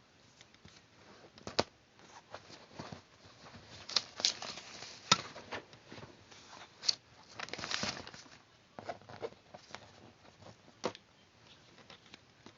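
Paper being handled and worked by hand: irregular sharp clicks and taps with short rustles, and a longer crinkling rustle about eight seconds in.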